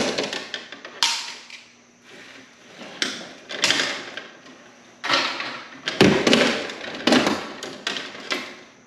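Hands and a hand tool working stiff wires into a breaker panel: a run of irregular sharp clicks, knocks and clatters, about seven of them, each fading quickly.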